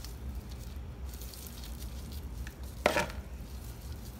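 Fresh cerasee leaves and stems rustling and crackling as they are handled in gloved hands over a plastic bowl, with one short sharp sound a little under three seconds in. A steady low hum runs underneath.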